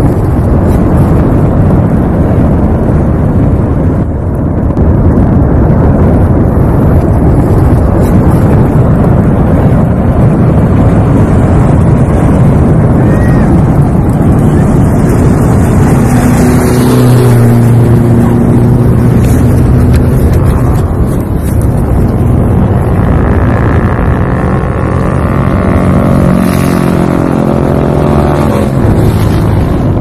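Mount Merapi erupting: a loud, continuous low rumble. About halfway through a steady hum joins it, and in the last several seconds a wavering drone rides over the rumble.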